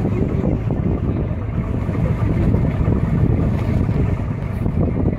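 A boat's motor running steadily, with wind buffeting the microphone.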